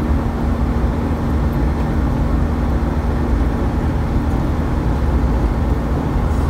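Maruti Suzuki Omni's small three-cylinder petrol engine held near top speed at about 105 km/h, heard inside the cabin: a steady low drone under heavy road and wind noise.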